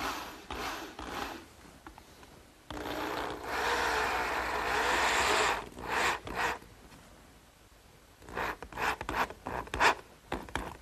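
Power drill driving 2½-inch self-drilling, self-countersinking screws into pine near the end of a board. There are short bursts in the first second and a half, one long run of about three seconds in the middle, and a cluster of clicks and knocks near the end.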